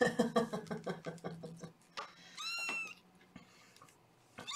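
Young kitten meowing in high, thin calls: a run of rapid pulsing sounds in the first second and a half, then one clear meow of about half a second that holds its pitch and drops at the end, and another beginning near the end.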